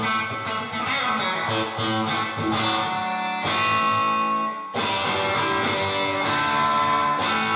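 Electric guitar played through a mildly overdriven amp on the Purple single coil of a Lace Sensor dually humbucker: strummed chords and picked notes with a few short breaks, each restarting with a fresh pick attack.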